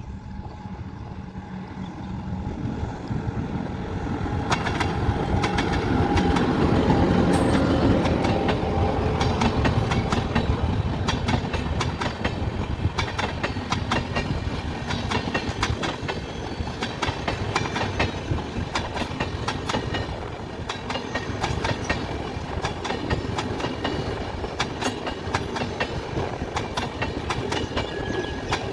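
Express passenger train passing. The locomotive's approach builds to its loudest about seven seconds in, then the coaches' wheels clatter rhythmically over the rail joints.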